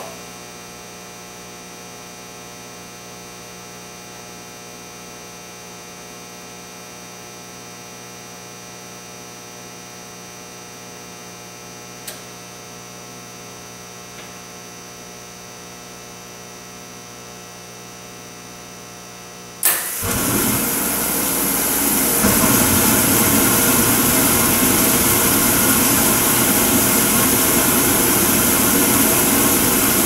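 A steady electrical hum. Then, about twenty seconds in, a sharp start as the Beckett oil burner, converted to burn waste oil, lights off once its preheated nozzle block reaches its enable temperature. The burner's blower spins up over a couple of seconds and settles into a loud, steady rush of fan and flame.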